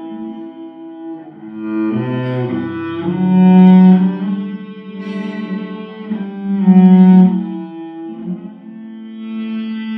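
Slow instrumental music: a bowed string instrument in the cello range playing long held notes, swelling louder twice.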